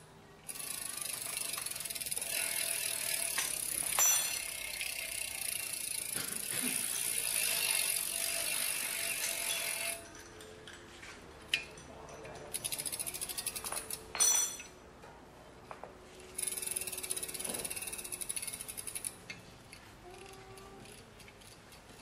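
Bicycle motor run on test: a high whirring hiss starts about half a second in and runs for about ten seconds, then returns for a few seconds later on. Between the two spells comes a stretch of fast, even mechanical ticking, and two sharp clacks are the loudest sounds.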